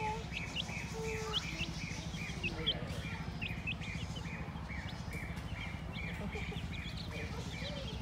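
Baby chicks peeping, short high chirps repeating about twice a second, over a low steady hum.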